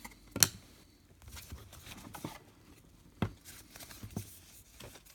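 Trading cards sliding and rustling as a pack is flipped through by hand, with a sharp card click about half a second in and a softer one a little after three seconds.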